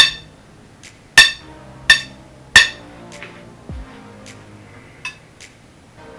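Metal parts being struck or knocked together: four sharp, ringing clinks in the first three seconds, then a few lighter ticks, over background music.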